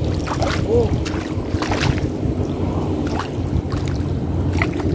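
Water splashing and sloshing around a hooked tilapia struggling at the surface, several short sharp splashes over a steady low rumble.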